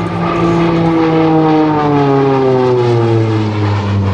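Embraer EMB-312 Tucano (T-27) turboprop flying past, its propeller and engine drone sliding steadily down in pitch as it passes.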